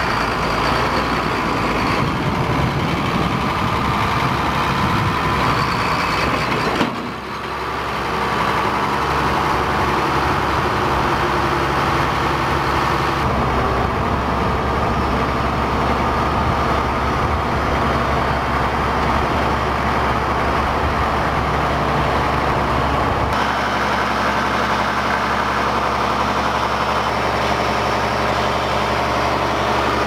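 Ford 8730 tractor's six-cylinder turbo diesel engine running steadily.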